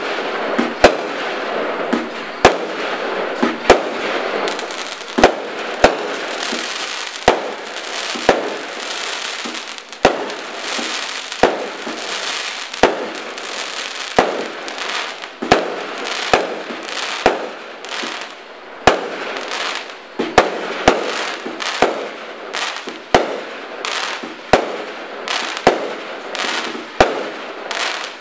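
Black Cat Apollo roman candle firework cake firing shot after shot: sharp bangs at an uneven pace, roughly one a second, over a steady crackling hiss from the bursting stars.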